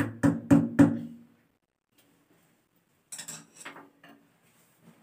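A hammer striking a screwdriver held against ceramic wall tile, about four quick ringing metallic strikes in the first second or so, chipping a hole for a wall plug. A few fainter clinks follow about three seconds in.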